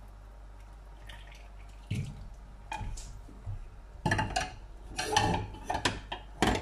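Jaggery water trickling and dripping through a small steel strainer into a pot of rice, then a string of short metal clinks and knocks as the steel strainer and vessels hit against each other and the pot.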